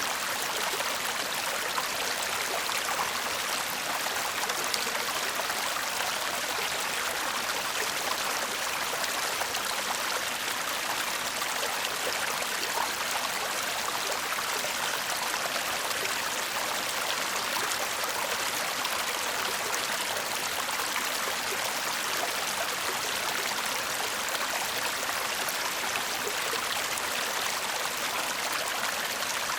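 A shallow stream babbling and trickling over stones, a steady, even rush of water without pauses.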